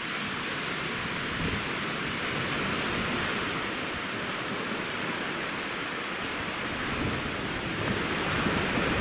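Sea surf washing onto a sandy beach, a steady hiss of breaking waves, with wind buffeting the microphone and growing stronger near the end.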